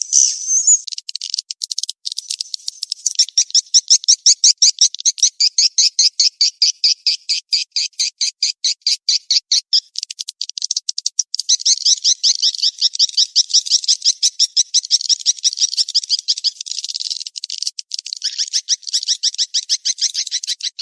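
Edible-nest swiftlet calls from a swiftlet-farming lure track: rapid trains of high, twittering chirps, about eight a second, sparser and quieter for the first few seconds, then dense. The calls are the 'mating chase' calls used to draw swiftlets into a nesting house.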